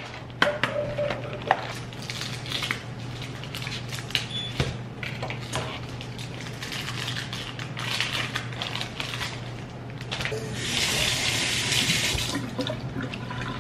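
Kitchen sink tap running for about two seconds near the end, among scattered clinks and taps of dishes and utensils, over a steady low hum.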